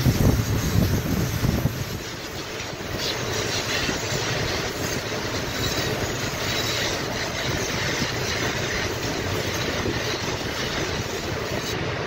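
Aerosol can of Viper foaming coil cleaner spraying onto an evaporator coil: a steady hiss, with a low rumble underneath that is strongest in the first two seconds.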